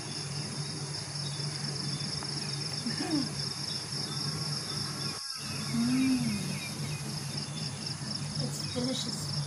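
Steady high-pitched chirring of insects, breaking off for a moment about five seconds in.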